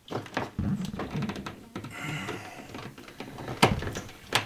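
Small clicks and scrapes of heavy stranded cable being worked into a tight screw terminal on a Midnite Solar charge controller, with two sharper clicks near the end.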